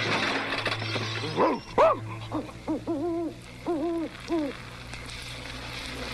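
Cartoon night-time owl hooting: a run of short rising-and-falling hoots in small groups, after a hiss in the first second or so.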